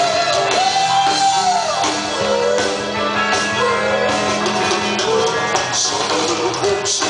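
Live rock-and-roll band playing an instrumental stretch, with a steady bass note, drum hits and a held higher note that bends near the start.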